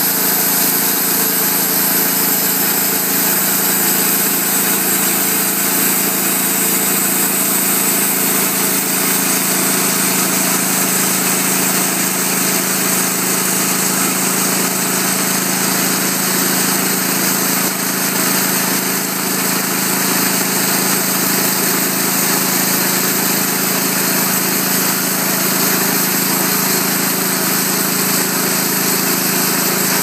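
Portable band sawmill's gas engine running steadily while the band blade is driven along a log, cutting a board.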